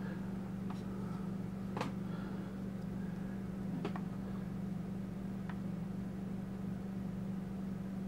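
Steady low electrical-sounding hum, with a few faint light clicks as hands work on the open laptop.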